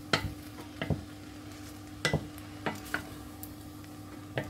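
Wooden spoon stirring and tossing spaghetti with vegetables in a stainless steel pot, knocking against the pot now and then: about six irregular knocks over a faint steady hum.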